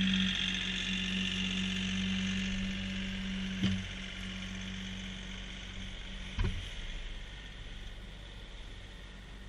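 Kioti CK3510 tractor's three-cylinder diesel engine running with a steady hum, fading as the tractor drives away. Two short clunks, about three and a half and six and a half seconds in.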